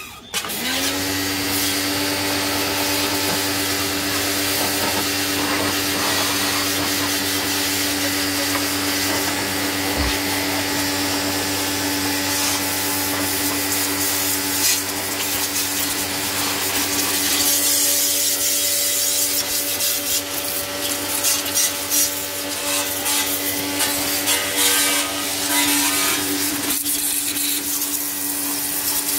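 Pressure washer running. Its pump motor spins up with a rising hum just after the start, then holds a steady hum under the constant hiss of the high-pressure water jet blasting mud off a vehicle's front chassis and radiator support.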